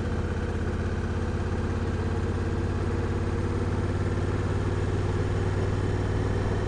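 Honda Africa Twin CRF1000L's parallel-twin engine running steadily at low revs, getting slightly louder partway through.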